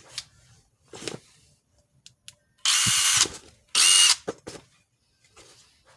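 DeWalt 3/8-inch drive cordless impact wrench run twice with no load: two short trigger pulls of about half a second each, the motor spinning freely with a high whine and no hammering.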